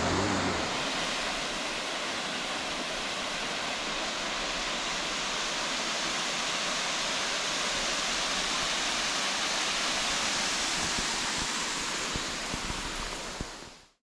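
Steady rushing of a waterfall, an even hiss of falling water that fades out at the very end.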